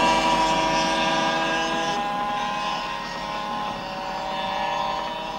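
Small two-stroke Go-Ped scooter engines running, fading gradually, with the pitch easing down after about two seconds.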